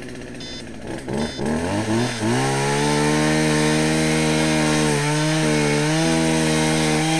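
Chainsaw started about a second in, revving up over a second or so and then running at a steady high speed, with a brief dip near five seconds.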